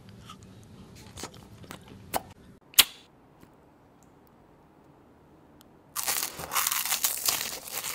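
Close-up candy biting and crunching: a few sharp bites and clicks in the first three seconds, then after a quiet pause a dense, loud crunching from about six seconds on as a clear, glassy candy slab is bitten into.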